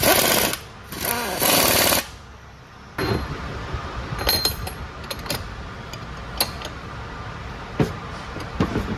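Hand-held air tool run in two short bursts with a fast rattle and hiss, driving down bolts on the transmission's air filter regulator. Then scattered metal clinks and knocks as the gear-laden auxiliary housing is handled.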